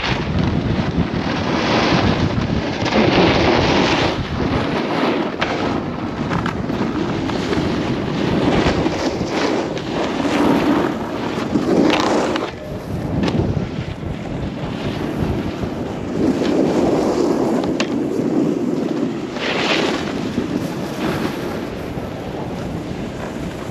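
Wind buffeting an action-camera microphone at riding speed, mixed with snowboard edges scraping over packed snow, rising and falling with the turns.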